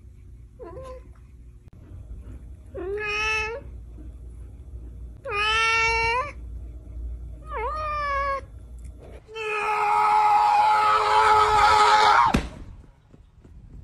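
Domestic cat meowing: a short chirp about a second in, then three meows a couple of seconds apart, then one long, loud yowl that breaks off suddenly near the end.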